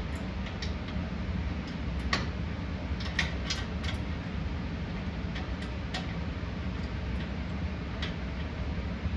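Light, irregular metallic clicks and taps from nuts, washers and bumper-bracket hardware being handled and hand-tightened, thickest in the first four seconds, over a steady low hum.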